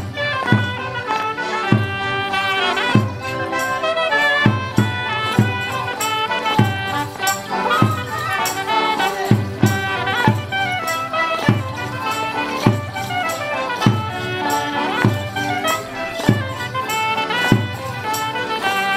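Live folk band playing a morris dance tune on fiddles, melodeon and a wind instrument, with a drum marking a steady beat about once a second.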